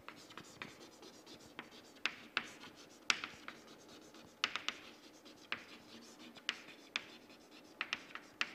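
Chalk writing on a chalkboard: irregular sharp taps and short scratches as letters are written.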